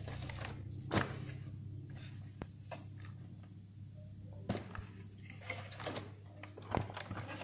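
A few sharp clicks and knocks from an MN 99s RC crawler's plastic body and chassis being handled: about a second in, near the middle and near the end, over a steady low hum.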